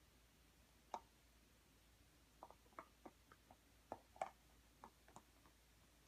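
Faint, irregular clicks and small squishes of a red heeler chewing a bone-and-ball chew toy: one click about a second in, then a scattered run of them in the second half.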